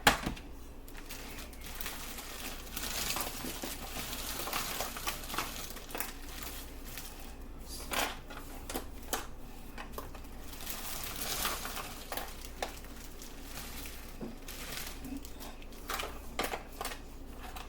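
Plastic bag of frozen mixed vegetables crinkling, with scattered small clicks and taps as the pieces are sprinkled into a baking pan.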